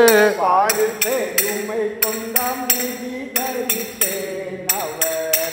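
Male voices singing a drawn-out, wavering Chavittu Nadakam song line, with sharp metallic cymbal beats about three a second.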